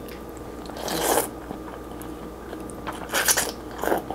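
A person slurping vermicelli noodles in curry broth: a short, noisy slurp about a second in and two more near the end.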